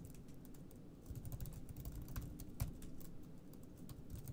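Typing on a computer keyboard: quiet, irregular keystrokes that start about a second in.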